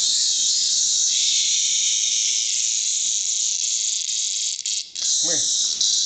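A cicada buzzing loudly, a harsh high-pitched drone. It thickens for a few seconds, cuts out briefly about five seconds in, then starts again in stuttering bursts.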